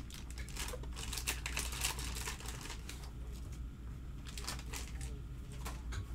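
Scattered light clicks and crinkles from handling packaging, such as the plastic wrap on a trading-card box, over a steady low hum.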